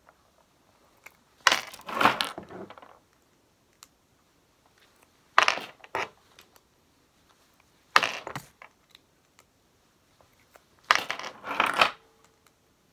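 Small cast lead jig heads clinking together as they are twisted off the casting with pliers and dropped onto a pile: four short bursts of metallic clinks, about three seconds apart.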